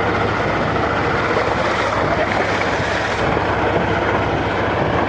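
Tractor engine running with a hoarse bark as it tows a passenger trailer over a rough dirt road, steady throughout, with wind buffeting the microphone.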